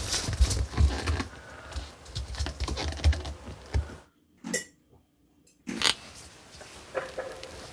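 Close handling sounds: dense clicking, rustling and low thumps of things being handled, then after a short break a few isolated knocks.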